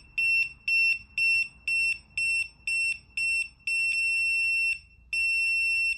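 MojoLock electronic keypad deadbolt beeping as it tries and fails to lock or unlock: short high beeps about two a second, then two longer beeps of about a second each. The bolt is binding because the door is not pulled in against its seal.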